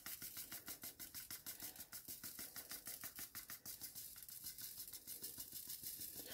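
Diamond-painting drills rattling and sliding inside a plastic drill tray as it is tilted and shaken, a faint, fast stream of tiny clicks.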